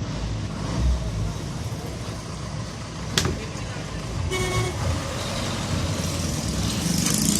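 Steady vehicle and engine rumble with a sharp click about three seconds in and a short horn toot a second later.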